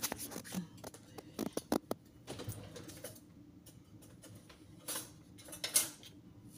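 Light plastic clicks and knocks from a food processor's clear bowl and blade assembly being handled, scattered through the first two seconds, then two louder rattling knocks near the end. The motor is not running.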